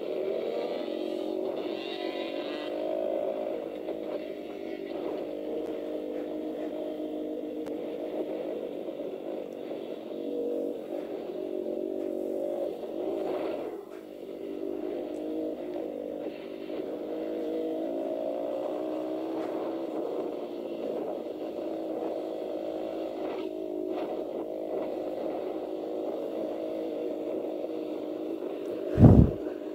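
A 150cc dirt bike's engine running and revving up and down through the gears as it is ridden along a dirt trail, heard from the rider's helmet. A single loud thump near the end.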